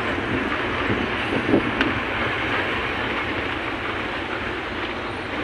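Bus driving at speed: a steady mix of engine, tyre and wind noise heard at an open side window, with body rattles and one sharp knock about a second and a half in.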